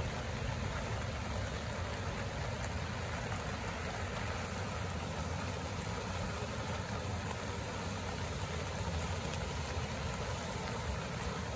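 Swollen, muddy river in flood, its fast water rushing steadily with a deep low rumble.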